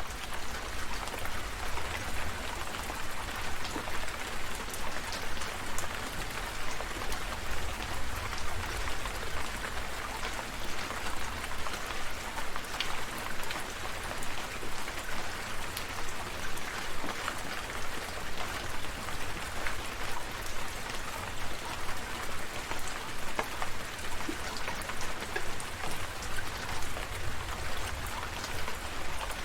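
Steady rain falling, with a dense patter of individual drops over a steady low rumble.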